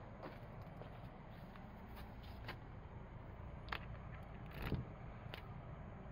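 A key is slid into and turned in a garage door's cylinder lock, giving a few faint metallic clicks and scrapes, the loudest about three-quarters of the way through, over a low steady outdoor rumble.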